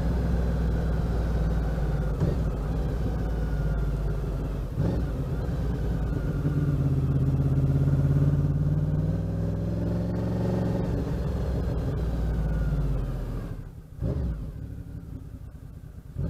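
1988 Honda VFR750 (RC24) V4 engine pulling the bike along the road after a carb sync. Its note has short breaks about two and five seconds in, rises through the middle and eases back. About three-quarters of the way through the throttle closes sharply, and after a brief blip of revs the engine runs low and quiet.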